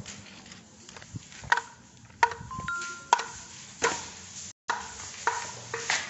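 Irregular sharp knocks and clicks of footsteps and a wooden panel door being pushed open, with a short two-note electronic beep, low then higher, about two and a half seconds in. The sound cuts out completely for a moment a little past the middle.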